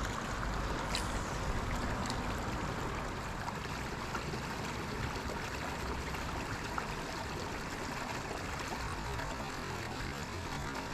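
Creek water running steadily over a small waterfall, an even rushing trickle.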